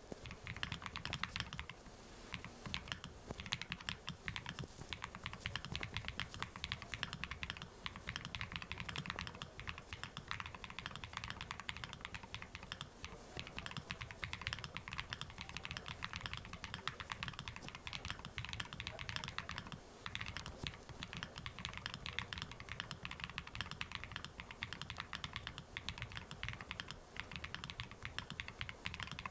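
Continuous typing on a 67-key mechanical keyboard with Kucha purple switches: a quick, even stream of key clicks and clacks, with a short pause about two seconds in.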